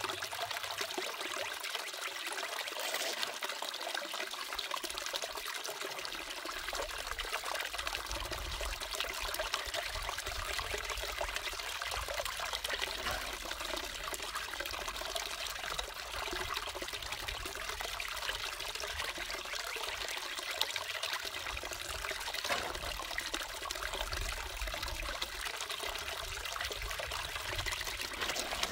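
Water running steadily down a small gold sluice box with green matting and trickling into the tub beneath, as paydirt is fed in by hand. A low rumble joins about six seconds in.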